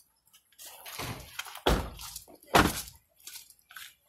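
Car doors being shut: two heavy thuds a little under a second apart near the middle, with a fainter knock just before them.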